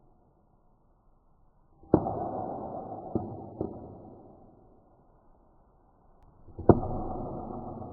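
A PillCam capsule camera slammed down twice, heard in slowed-down slow-motion audio. Each slam is a sharp hit that rings on and fades over a couple of seconds, and the first is followed by two smaller bounce clicks.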